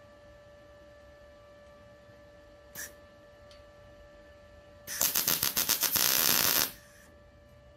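MIG welder laying a tack weld: the arc crackles loudly for nearly two seconds, starting about five seconds in, as a rapid run of clicks. A single short click comes about three seconds in.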